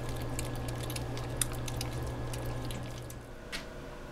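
Several kittens eating wet cat food, a rapid stream of wet smacking and clicking chewing and lapping sounds over a steady low hum. The eating sounds and the hum stop together about three and a half seconds in.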